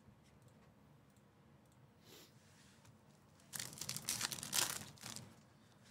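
A foil baseball-card pack being torn open by hand. About three and a half seconds in, the wrapper crinkles and rips for nearly two seconds.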